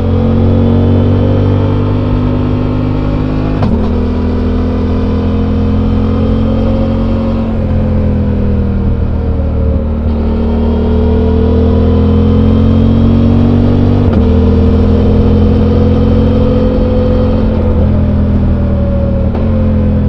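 Suzuki V-Strom 800's 776 cc parallel-twin engine on its stock exhaust, heard on board while riding, its note rising and falling gently with the throttle. The note breaks off and steps suddenly about four seconds in and again around fourteen seconds.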